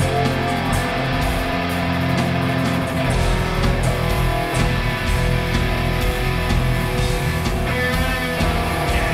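Metal band playing live: distorted electric guitar chords over a drum kit with cymbal hits.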